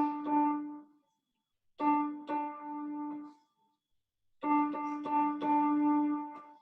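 Electronic keyboard playing Morse code on one repeated note: short and long key presses grouped into letters, with pauses of about a second between the groups.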